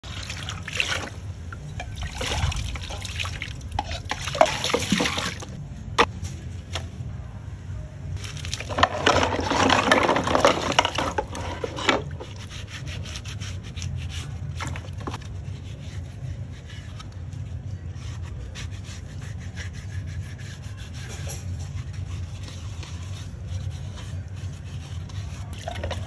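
Water pouring and splashing into a basin while coconut-shell cups, calabash bowls and wooden spoons are handled in it, with sharp knocks of shell and wood against each other. The splashing is loudest in two spells, the first five seconds and again around nine to twelve seconds in. After that come quieter wet rubbing as the vessels are scrubbed by hand with leaves, and occasional small clacks.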